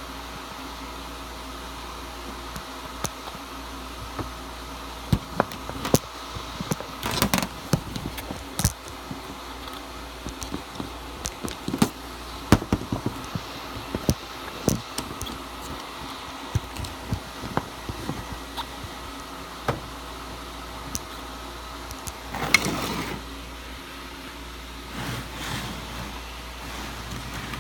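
Steady mechanical hum from a running car, with irregular sharp clicks and knocks throughout and two brief rushing noises, about seven seconds in and near the end.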